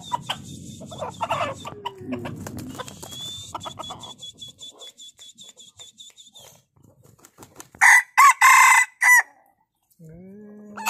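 Junglefowl-type rooster crowing loudly about eight seconds in, one crow of about a second and a half broken into several parts. It is preceded by a few seconds of sharp ticks and a faint high pulsing tone.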